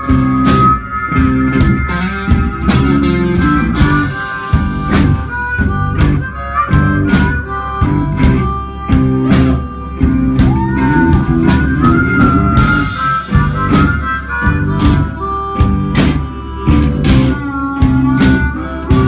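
Live blues-rock band: an amplified harmonica, played cupped against a hand-held microphone, plays held and bending notes over electric guitar, bass and a steady drum beat.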